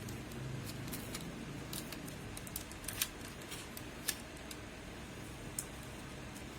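Scattered light clicks and taps of small parts and hand tools being handled during repair of a car's multifunction display unit, the sharpest about three seconds in, over a steady low hum.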